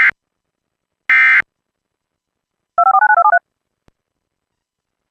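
Emergency Alert System end-of-message data bursts: buzzy digital tone bursts about a second apart, the tail of one and then one more. About three seconds in comes a quick run of rapidly changing beeps lasting about half a second.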